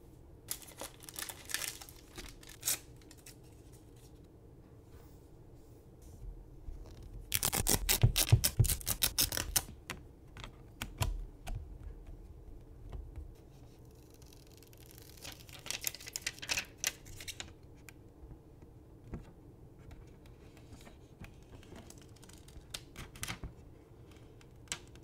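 Hands handling a tablet and its screen protector kit: scattered clicks, taps and rustles of film and packaging, with a louder spell of rapid crackling clicks about a third of the way in and a softer scratchy stretch past the middle.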